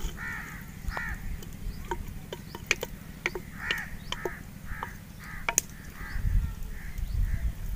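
Crows cawing repeatedly, each caw short and harsh, mixed with a few sharp clicks of a wooden spoon against a clay cooking pot as onions are stirred.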